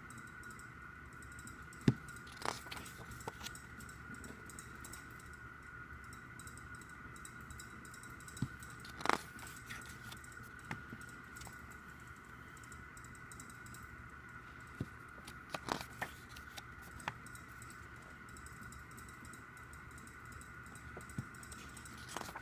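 Pages of a glossy album photobook being turned and handled, giving scattered short paper rustles and taps, the sharpest about two seconds in and about nine seconds in. A steady, faint high-pitched whine runs underneath.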